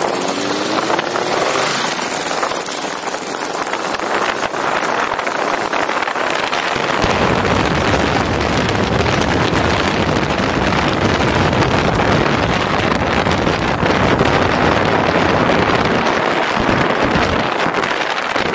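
Wind rushing over the microphone of a camera mounted on a moving motorcycle, with the engine faintly rising in pitch as it accelerates in the first couple of seconds. About seven seconds in, the wind buffeting turns heavier and deeper.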